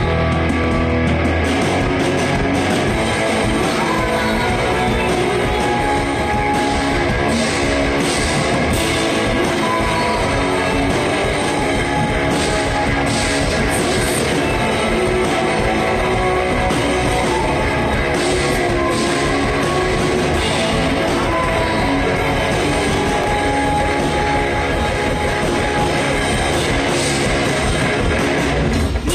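Rock band playing live: electric guitars over a drum kit, loud and continuous.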